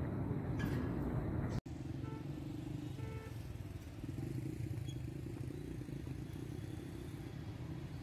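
Steady low rumble of road traffic, with two brief pitched tones about two and three seconds in.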